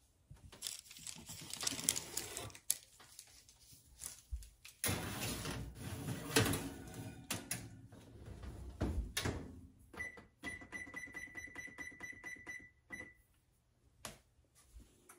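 A baking sheet of cookies slid into an electric oven, with clattering knocks from the rack and the oven door being shut. About ten seconds in, the range's control panel beeps steadily for about two and a half seconds.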